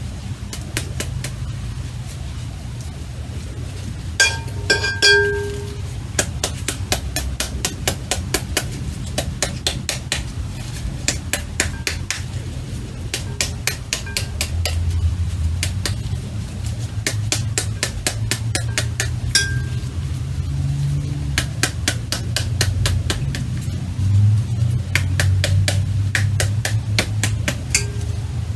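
A metal spoon beating the back of a halved pomegranate in quick runs of taps, several a second, knocking the seeds out into a glass bowl. Twice a blow rings briefly, once about four seconds in and again near twenty seconds.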